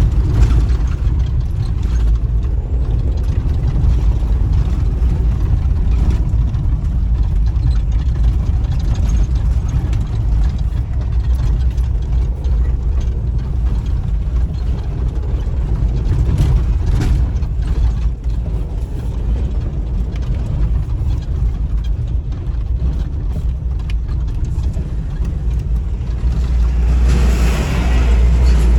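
A moving vehicle's steady low rumble of engine and road noise, with a louder rushing swell near the end.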